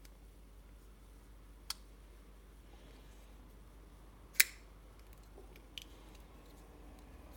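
Boker Kwaiken folding knife with wooden handle scales being flicked open and shut: the blade snaps into place with sharp metallic clicks, one about a second and a half in, a much louder snap a little past halfway, and a light click near the end.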